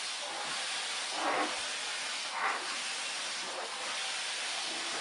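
Vacuum cleaner running with a steady hissing rush, with a few brief swells in the sound.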